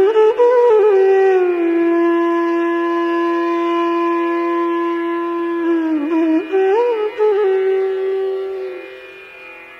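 A conch shell blown in a long, loud, steady note that swells up in pitch at the start. It wavers and breaks about six seconds in, then sounds again and stops a second before the end.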